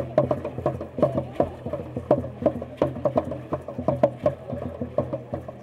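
Rhythmic ceremonial percussion: a quick, uneven run of sharp clicks and knocks, several a second, over a steady low hum.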